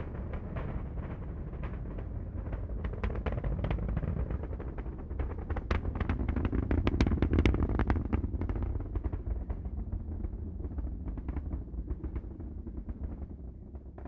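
Rocket launch: a deep, steady rumble of rocket exhaust full of dense crackling. It swells to its loudest about halfway through, then thins and fades toward the end.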